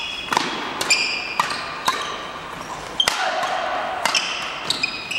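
Badminton rally on a wooden gym court: sharp racket strikes on the shuttlecock every half second or so, with short high squeaks of players' shoes on the floor between them.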